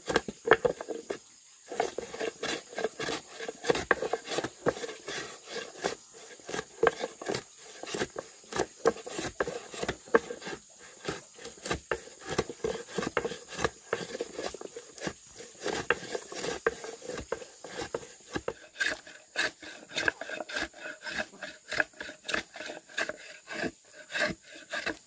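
Hand tools working wood: a quick, irregular run of sharp knocks and scraping strokes, several a second, going on without a break.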